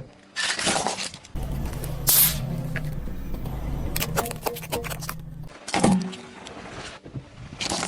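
A car engine running at low revs while objects are crushed under its tyres: a run of sharp crunches and cracks about four to five seconds in, and several short loud bursts of noise.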